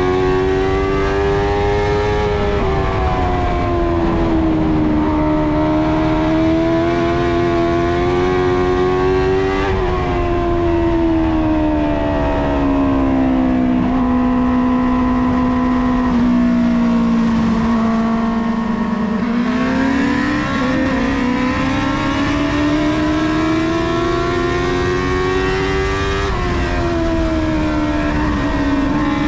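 Dwarf race car's motorcycle-derived four-cylinder engine heard from inside the cockpit, its pitch rising and falling as the driver gets on and off the throttle around the oval. About halfway through, under the caution, it holds low and steady for several seconds at the slower pace, then climbs again as the car picks up speed.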